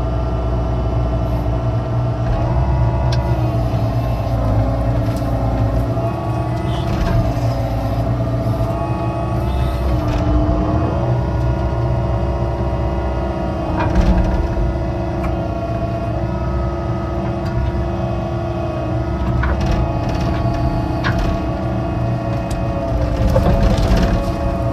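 Excavator digging a ditch: its diesel engine and hydraulics run steadily, the pitch stepping up and down, with a few sharp knocks and cracks from the digging.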